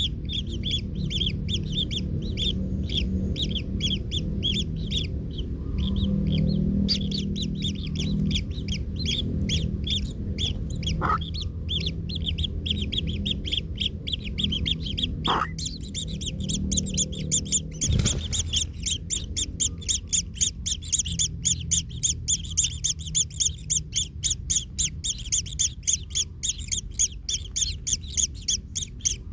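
Kingfisher nestlings calling in a fast, unbroken stream of short, high-pitched calls, several a second, which grow louder about two-thirds of the way through, over a low rumble. A few sharp clicks come near the middle.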